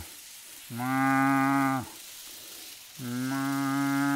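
A cow mooing twice, each moo a steady call about a second long: the first about a second in, the second near the end.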